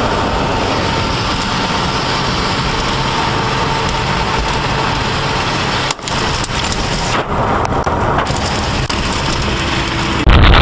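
Steady road and engine noise of a car driving, heard from a dashcam inside the cabin. About six seconds in it drops out for a moment, then goes on rougher, with scattered clicks.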